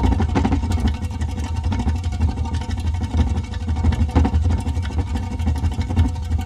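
Hamster running in an exercise wheel: the spinning wheel gives a steady low rumble with a quick, uneven rattle over it.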